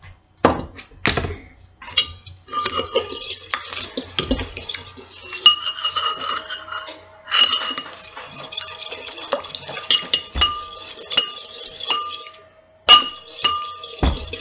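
Metal fork beating raw eggs in a ceramic bowl: rapid clinking and scraping against the bowl, each strike ringing, after a few separate knocks at the start. The clinking stops briefly near the end, then starts again.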